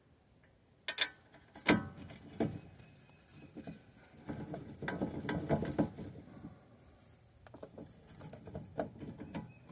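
Hand socket ratchet clicking in short runs on a sway bar link nut, with a few sharp metal knocks from the tools.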